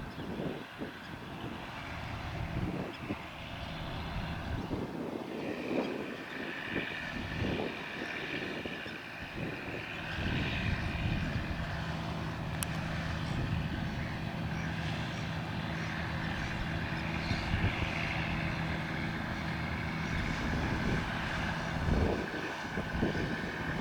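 A passing boat's engine running steadily, its hum and whine growing louder from about five seconds in, with wind gusting on the microphone in the first few seconds.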